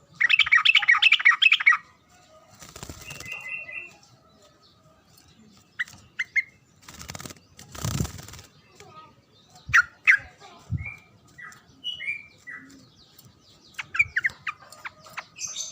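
Yellow-vented bulbul (trucukan) calling: a loud burst of rapid chattering at the start, then scattered short chirps and whistled notes. A few brief rustling noise bursts, like wing flaps, come in between.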